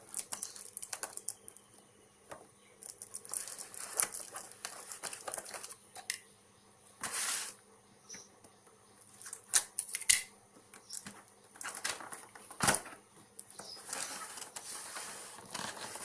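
A knife-set box and its wrapping being opened by hand: irregular rustling and crinkling of packaging, with scattered clicks and taps of cardboard and plastic parts.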